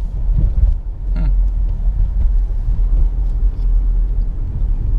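Steady low rumble of a 2017 Nissan Rogue being driven, heard from inside the cabin: road and drivetrain noise at cruising speed.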